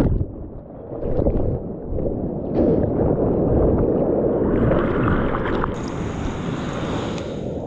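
Sea water sloshing and splashing against a surfboard as it is paddled, with the sound dull and muffled for about the first second while the microphone is under water, then opening up into a steady wash of water.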